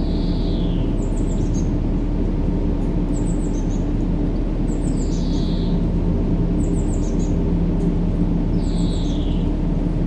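Steady low rumbling noise of a sleep-sound track, with bird chirps repeating on a loop over it: a quick cluster of high chirps about every two seconds and a lower falling call every few seconds.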